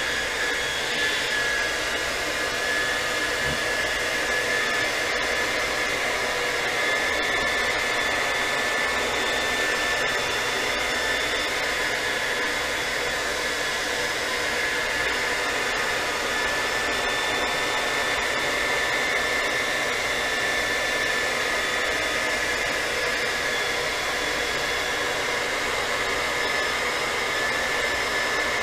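Handheld hair dryer running steadily, blowing hot air: a constant high motor whine over rushing air.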